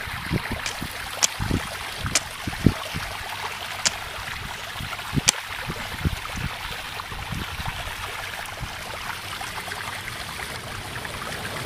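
A machete chopping into wet, muddy ground to dig up a plant: a handful of dull knocks, most of them in the first three seconds, with a few sharp clicks, over a steady rushing noise.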